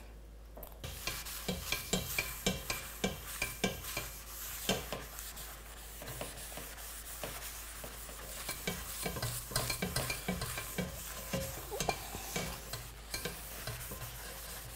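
Paper towel wiping around the inside of a seasoned Stargazer cast iron skillet: a steady run of quick, irregular rubbing strokes, starting about a second in.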